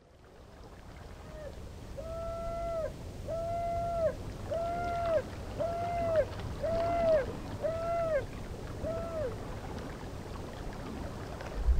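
Intro sound effect: a low rumble fading in, over which a hollow hooting tone repeats about eight times, roughly once a second, each note dipping in pitch as it ends.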